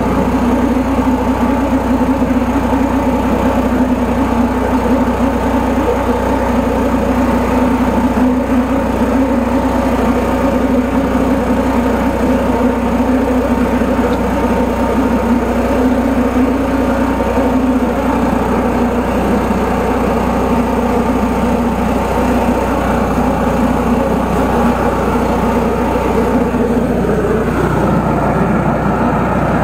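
Engine and pump of a high-pressure sewer jetter running steadily under load, with a change in its note near the end.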